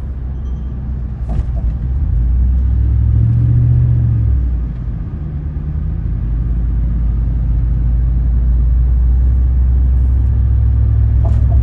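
Steady low rumble of a car driving at speed, heard from inside the cabin: road and tyre noise that swells about two seconds in, dips briefly, then holds.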